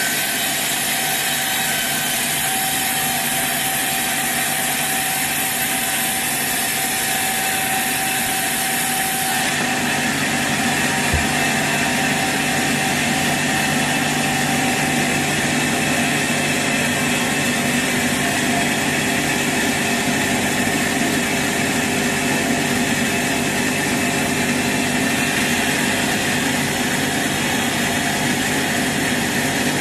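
Sawmill saw machinery running steadily while sawing teak wood, a continuous loud machine drone with held tones; the sound changes character about ten seconds in, and there is a single short knock shortly after.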